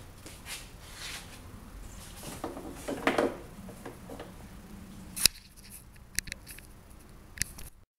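Faint background noise with a few short, sharp clicks and knocks, the loudest about five seconds in.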